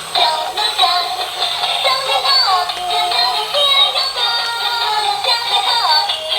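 Music with synthetic-sounding singing, thin and tinny with no bass, the melody gliding up and down.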